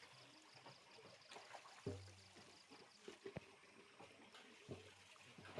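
Near silence: faint outdoor background with a low steady hum and a few soft knocks.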